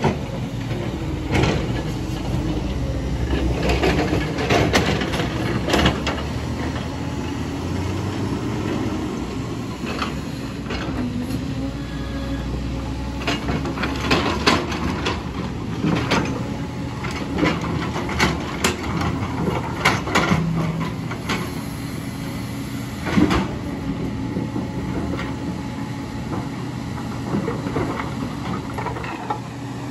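Diesel engines of a JCB tracked excavator and a loaded dump truck running steadily, with sharp knocks and clatters of rock scattered throughout as the excavator digs into stony ground.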